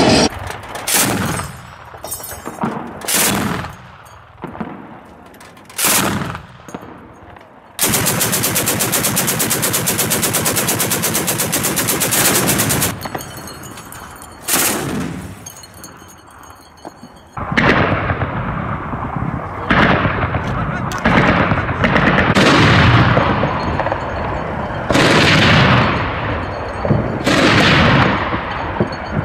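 Gunfire in a firefight. Scattered single shots come first, then a long unbroken automatic burst of about five seconds and a lone shot. In the second half, heavy shots or blasts follow every second or two, each echoing away.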